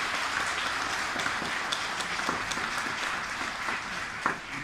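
Audience applauding, a dense patter of many hands that slowly thins and eases, with one sharp clap standing out near the end.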